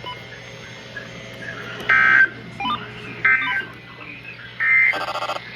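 Three short bursts of warbling two-tone data, about a second apart, from a NOAA Weather Radio Emergency Alert System (SAME) broadcast. Sent right after the spoken warning, they mark the end of the message. A brief buzz follows the third burst.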